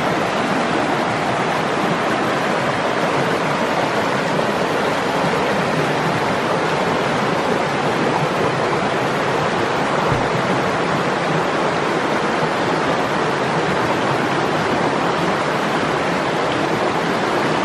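Shallow mountain river rushing over rocks and rapids: a steady, even rush of water.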